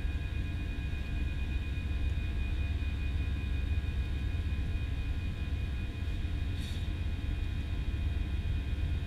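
Airbus A320 cabin noise in the climb after take-off: a steady low rumble of the engines and airflow with a few thin, steady high engine tones. A brief faint tick comes about two-thirds of the way through.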